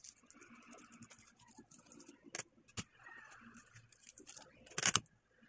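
Thin plastic barrier bags for a tattoo pen machine crinkling and rustling as they are handled, with a few sharp clicks, the loudest about five seconds in.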